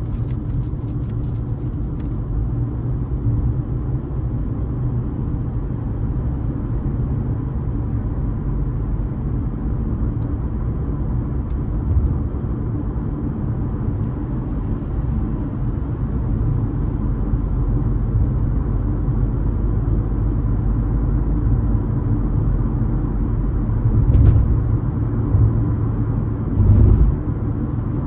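A car driving on the road: a steady low rumble of tyres and engine, with two brief louder bumps near the end.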